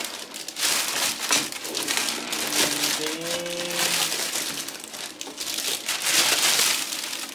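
A clear plastic protective bag crinkling and rustling as it is handled and pulled up off a PC case.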